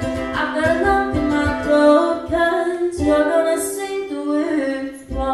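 A young female singer singing solo into a microphone while strumming an acoustic guitar, amplified live on stage.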